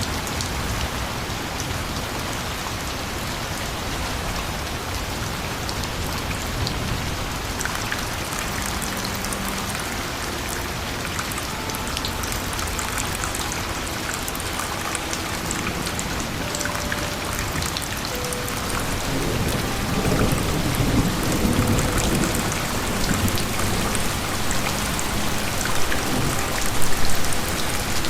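Steady rain falling, with thunder rumbling low in the second half and peaking near the end.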